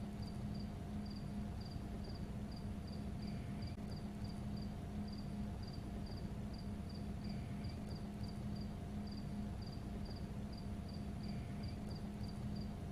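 A cricket chirping steadily, about three short chirps a second, over a constant low hum. A faint falling call comes about every four seconds.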